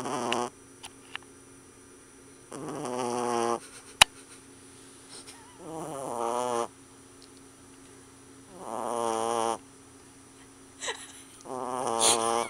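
A sleeping puppy snoring: one wavering, pitched snore about a second long roughly every three seconds. A single sharp click about four seconds in.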